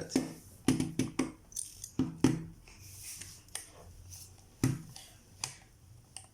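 Light clicks and taps of tiny metal screws and a small screwdriver being handled and set down against the lens parts, about seven sharp clicks at uneven spacing, most of them in the first couple of seconds.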